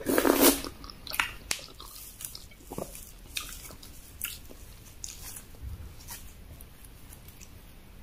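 A person eating eba (cassava garri) with egusi soup: a loud wet mouthful as it goes in, then chewing with scattered sharp smacks and clicks that thin out toward the end.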